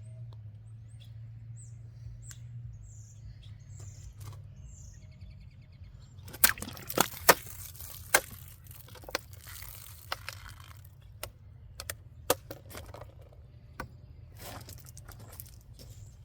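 Small birds chirping over a low hum. About six seconds in, a cheap stainless steel multitool's serrated saw blade cuts into material: a run of sharp clicks and rasping strokes, with another rasping stretch near the end.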